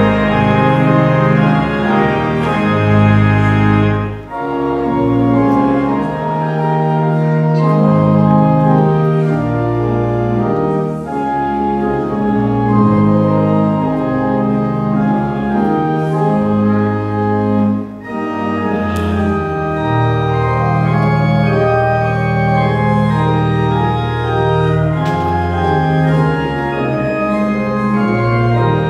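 Church organ playing full, sustained chords that change every second or so, with brief breaks between phrases about every seven seconds.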